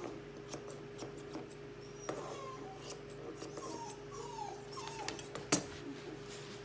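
English Cocker Spaniel puppy whimpering in a string of short, falling whines while its front feet are being trimmed, with scattered small scissor clicks and one sharp knock about five and a half seconds in.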